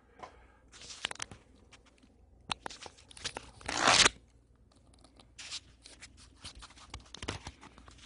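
Handling noise from a handheld camera being moved about: scattered rustles and clicks, with one louder rasping scrape, under a second long, about four seconds in.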